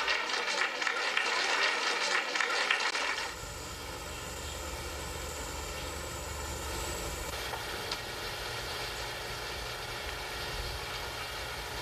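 A steady machine-like drone: a louder hissing rush for about the first three seconds, then a quieter, even low hum.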